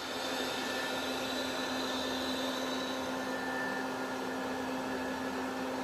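Live tooling on the turret of a Citizen M20V CNC Swiss lathe spinning steadily at 5,000 RPM: an even, quiet machine hum with a constant tone under a light hiss.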